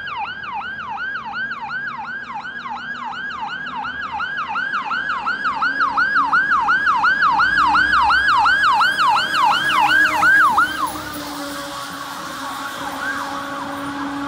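Fire truck's electronic yelp siren: a fast sweep in pitch repeating about three times a second, growing louder as the truck approaches, then cut off suddenly about eleven seconds in. A fainter siren follows.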